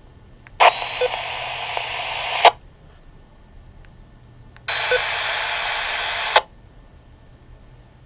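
Handheld VHF transceiver's speaker opening twice on static hiss with a faint steady whistle through it, each burst about two seconds long and starting and ending with a click as the squelch opens and closes.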